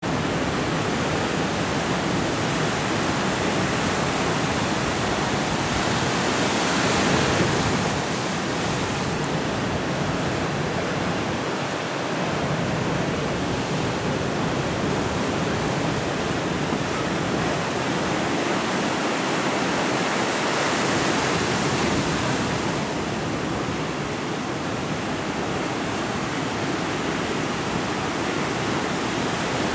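Ocean surf breaking on a rocky shore: a steady rush of foaming white water that swells louder twice, about seven seconds in and again about twenty seconds in.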